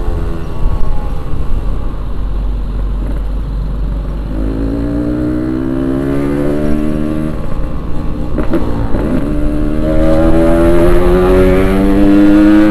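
Yamaha RX-King 135cc single-cylinder two-stroke engine accelerating under way, its pitch rising steadily, dropping sharply at a gear change about two-thirds through, then rising again.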